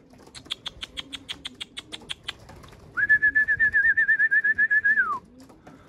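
A trilled whistle held on one pitch for about two seconds, dropping away at the end: a pigeon keeper's call-whistle to bring young pigeons down into the loft. Before it comes a quick, even run of clicks, about seven a second.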